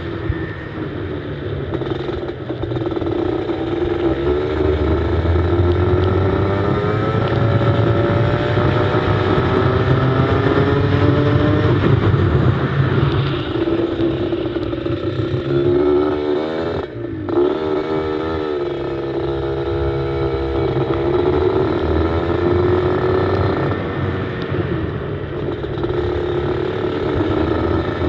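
Go-kart engine heard onboard, running hard through the laps: its pitch climbs steadily under acceleration, drops sharply under braking a little past halfway, then rises and falls again through the following corners.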